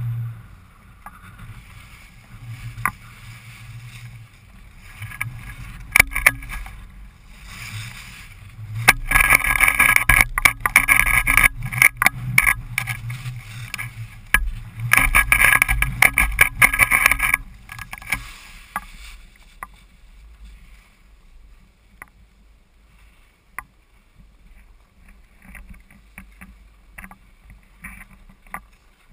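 Skis sliding and scraping over packed snow, with wind rumbling on the microphone. The edge scrape is loudest in two long stretches around the middle of the run, then settles to a quieter hiss with a few clicks near the end.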